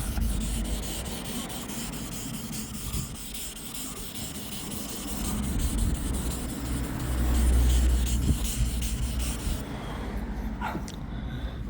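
Wet sanding of a car's painted body panel with 1500-grit paper: a steady rasping rub of repeated back-and-forth strokes, done to cut out paint scratches. The rubbing fades about ten seconds in, and a low rumble swells about seven seconds in.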